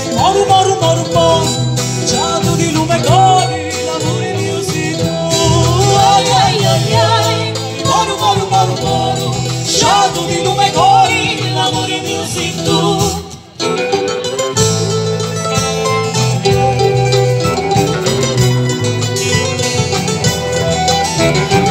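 Live folk band playing a song: singing over acoustic guitar, bass and drums. The band briefly drops out a little past halfway, then comes back in.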